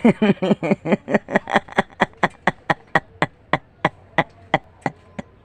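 A staccato 'hak-hak-hak' laugh sound effect: a run of short, clipped laugh bursts, quick at first, then slowing and fading away.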